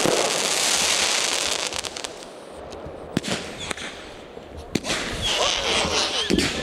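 Fireworks going off: dense crackling for the first two seconds, then sharp bangs about three and five seconds in, followed by more crackling.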